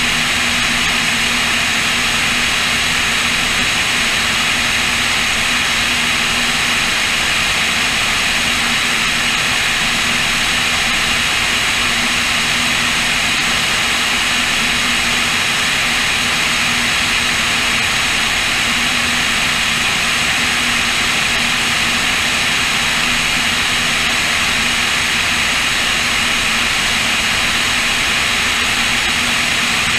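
Cessna O-2A's two Continental IO-360 piston engines and propellers droning steadily in level cruise, with a constant rush of airflow over a wing-mounted camera.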